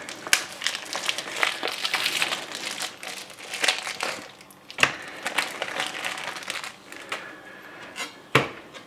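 Crinkling, crackling packaging as a slab of pork belly is unwrapped by hand, with three sharp knocks, the loudest near the end.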